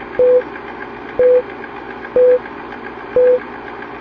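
Four short, steady beeps, one a second, over a steady hiss with faint rapid ticking.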